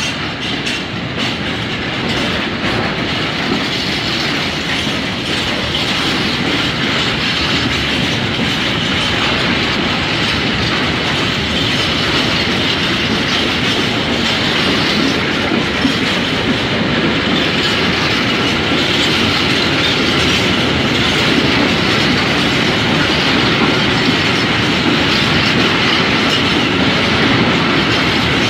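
Freight train of open freight wagons rolling past at close range: a steady rumble and clatter of wheels over the rail joints, with a high metallic hiss from the wheels. It grows a little louder over the first few seconds, then holds.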